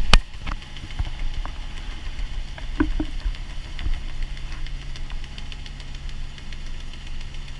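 Outrigger boat's engine running steadily while under way, with a few sharp knocks, the loudest right at the start.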